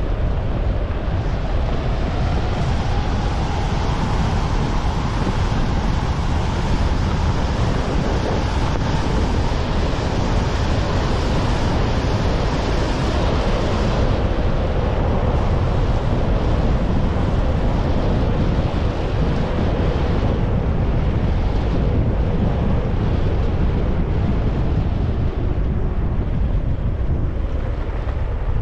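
Wind buffeting the GoPro's microphone while skiing downhill at speed, a heavy steady rumble, with the hiss and scrape of skis running over firm snow that eases off about halfway through.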